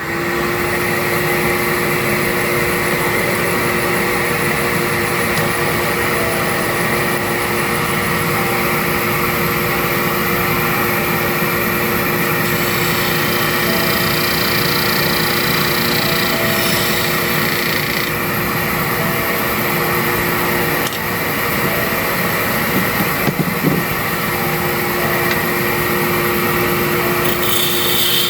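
Shop vacuum and wood lathe running together: a loud, steady motor whine over a rushing noise that starts suddenly at the beginning, with a brief dip about three-quarters of the way through.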